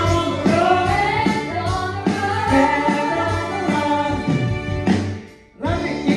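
Live band with a group of singers performing, several voices singing together over the band. The music falls away briefly near the end and then starts up again.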